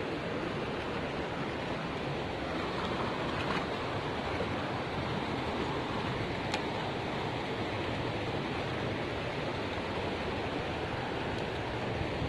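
Steady rushing of a fast-flowing river running high after a flood, with one brief click about six and a half seconds in.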